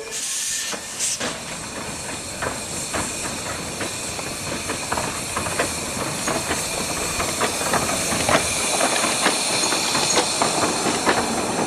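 15-inch gauge steam train: a burst of steam hiss in the first second, then wheels clicking rapidly over the rails, growing slowly louder.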